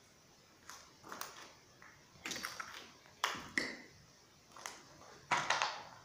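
Footsteps scuffing and crunching on a gritty concrete floor, an uneven string of short scrapes and taps about a step a second, the loudest near the end.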